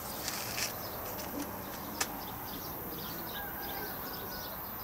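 Outdoor ambience of small birds chirping in short, high notes, with one sharp click about two seconds in.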